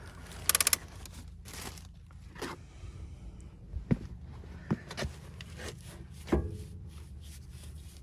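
Foot-operated parking brake pedal of a Mercedes C230 (W203) being pressed down, its ratchet giving a quick run of about five clicks as the brake is set on newly fitted rear parking brake shoes. A few scattered knocks and scrapes follow.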